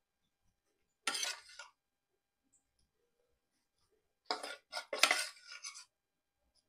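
Steel spoon clinking and scraping against steel vessels while sesame powder is spooned onto rice: a brief clatter about a second in, then a cluster of several clinks and scrapes past the middle.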